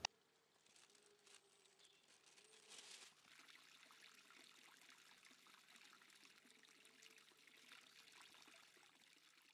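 Faint, steady trickle and splash of spring water pouring from a wooden trough onto a glass drinking-fountain block.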